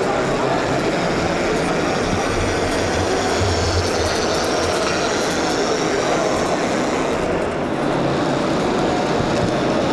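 Steady, even din of a busy exhibition hall, with no distinct events standing out.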